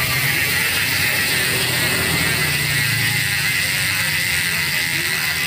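Upgraded Nautilus Clickr 148 rear mountain-bike hub freewheeling as the wheel spins and the freehub body is held: the pawls ratchet so fast that the clicks merge into one steady, even buzz, the 'wasp' (tawon) freehub sound the upgrade is meant to give.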